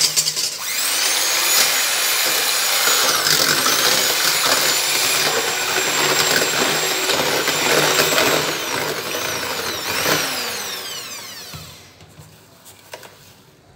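Electric hand mixer beating raw eggs in a stainless steel bowl: a loud motor whine that dips in pitch a few times, then winds down and stops about twelve seconds in.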